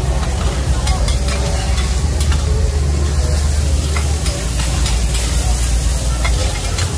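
Green-mussel omelettes (hoi tod) sizzling in oil on a large round flat griddle, with metal spatulas scraping and clicking against the pan. A steady low rumble runs underneath.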